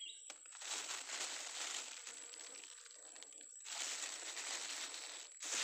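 Thin clear plastic bag crinkling and rustling as a hand handles the round lumps inside it, in uneven spells of crackle.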